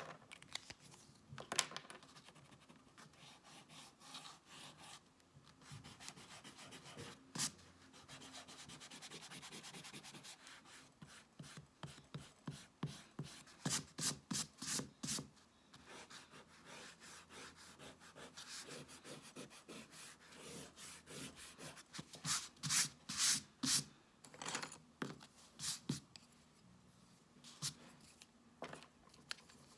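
Quick back-and-forth rubbing on sketchbook paper, in runs of rapid strokes, loudest in two bursts about halfway through and again near two-thirds of the way.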